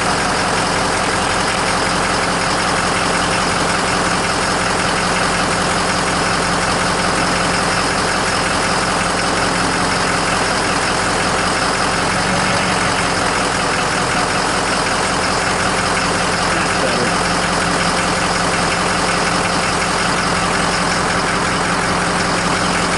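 Ford F550 Super Duty turbo diesel engine idling steadily.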